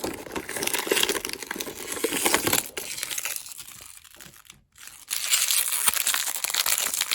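Plastic toy packaging being crinkled and handled while it is opened, in two spells of crackling with a quieter pause in the middle.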